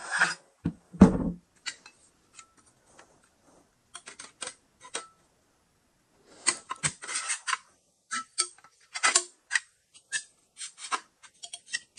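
Shotgun handguard and parts being handled and slid into place: a string of light clicks, taps and scraping rubs, with two dull thumps in the first second or so.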